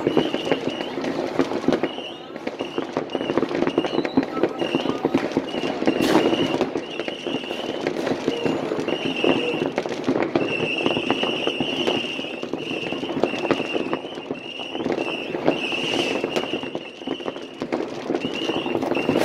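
New Year's fireworks going off in many places at once: a continuous dense crackle of firecrackers with rocket and battery bangs. A high tone pulses on and off throughout, in short repeated bursts with a few longer ones.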